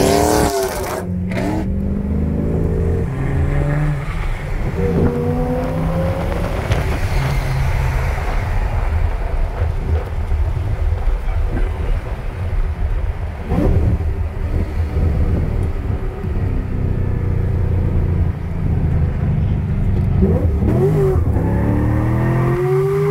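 V8 engine of a modified Holden VE Commodore SS, driven hard and heard from inside the car. The engine note climbs in pitch several times as the car accelerates, with short lifts of the throttle between.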